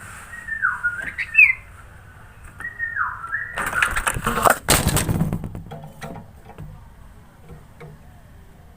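Sooty-headed bulbul (kutilang) giving clear whistled phrases, notes that drop and then hold level, twice in the first three seconds. This is followed by a loud rustling noise lasting about two seconds.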